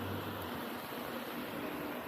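Steady hiss of rain falling on a city street, with a brief low hum in the first half second.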